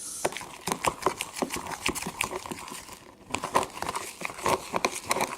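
Glitter glue slime being stirred with laundry detergent: a quick run of sticky clicks and crackles, with a short pause about three seconds in.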